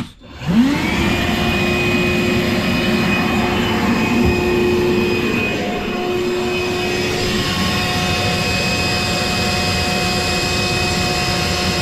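Battery-powered hoover spinning up with a rising whine about half a second in, then running steadily with its nozzle held to a kitchen sink's waste pipe to suck out a blockage.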